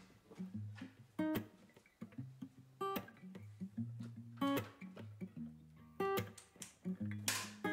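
Background music of a plucked acoustic guitar, notes and chords struck about every second and a half.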